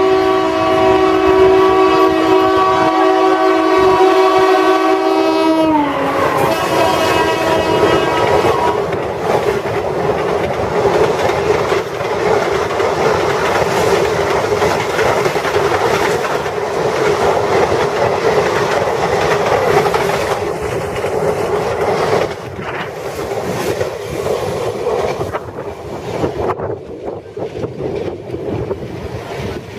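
Indian Railways WAP-class electric locomotive sounding a long, loud horn as it passes at speed; the horn's pitch drops about six seconds in as the locomotive goes by, and it stops near nine seconds. The coaches of the express then roll past with a steady clickety-clack of wheels over rail joints, fading over the last several seconds.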